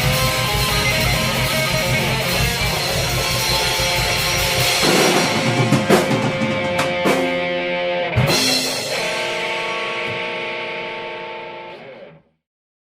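Rock band playing the close of a song: the full band until about five seconds in, then a few accented final hits, and a last chord left ringing. The chord fades and cuts off to silence near the end.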